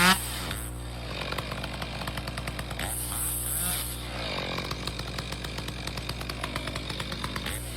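Chainsaw engine running at low speed with an even pulsing beat, with a short rev right at the start and brief faint throttle blips around the middle.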